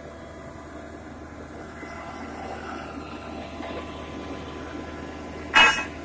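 Horizontal directional drilling rig running steadily, its engine and hydraulics giving an even drone. About five and a half seconds in comes one short, loud, sharp noise.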